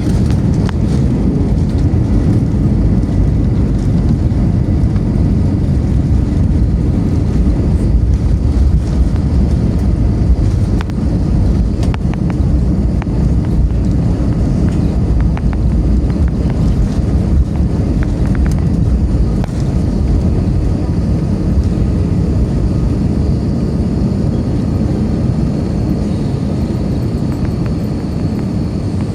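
Airliner cabin noise during landing: a loud, steady low rumble of the engines and the aircraft rolling on the runway, easing slightly near the end as it slows.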